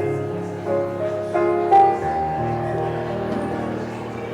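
Slow instrumental music: a keyboard instrument playing held chords that change a few times.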